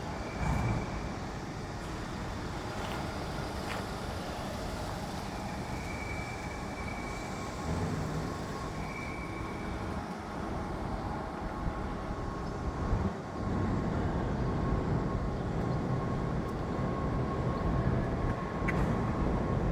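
Steady low rumble of engines or heavy machinery, with a faint thin steady tone joining about ten seconds in.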